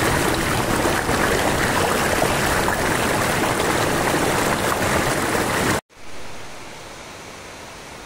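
Water rushing over rocks in a mountain stream, a loud, steady rush. It cuts off suddenly almost six seconds in, leaving a much fainter steady rush.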